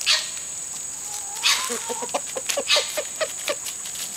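Chickens clucking, a quick run of short low notes lasting a couple of seconds, with a few short rustling bursts. A steady high-pitched insect drone runs behind.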